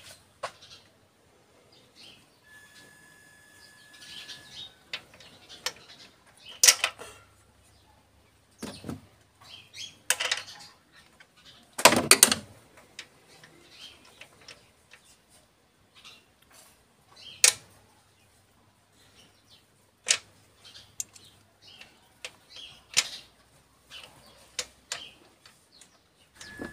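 Scattered clicks, knocks and rattles of hands and tools working around a car engine's exposed camshaft with the valve cover off, the engine not running. A few sharper knocks stand out, the loudest about twelve seconds in.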